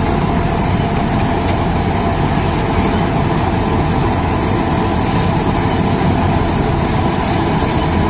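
John Deere 5310 tractor's three-cylinder diesel engine running steadily under load, driving a tractor-mounted harvester that is cutting tall, tough corn stalks. A dense, even mechanical drone with a steady whine in it, and no sudden knocks or changes.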